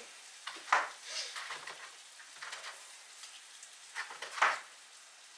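Food frying in a pan with a faint sizzle, and two sharp knocks, one under a second in and another about four seconds later.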